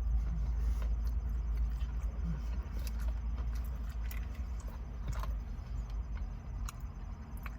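A person chewing crispy fried chicken tenders: faint scattered crunches and clicks over a steady low rumble.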